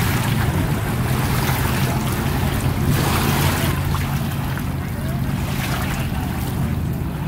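Small wavelets lapping over a stony shoreline, the wash swelling and easing every few seconds, over a steady rumble of wind on the microphone.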